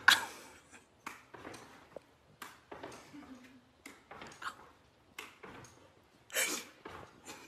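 A dog leaping and spinning on a rug, making a run of short breathy huffs and paw thumps about twice a second. The loudest come right at the start and about six and a half seconds in.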